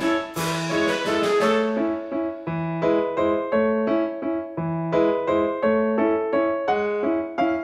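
Background piano music: a steady, even run of notes over a repeating bass note.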